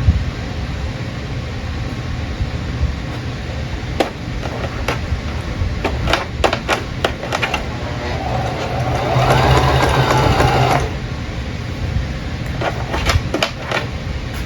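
Singer sewing machine running, sewing a button on with a zigzag stitch at zero stitch length, so the needle swings back and forth between the button's holes without feeding the fabric. It gets louder for about three seconds in the middle, with a rising whine.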